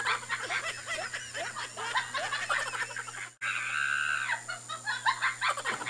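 Hard, high-pitched laughter in quick short peals over a call line, cutting out briefly about three and a half seconds in.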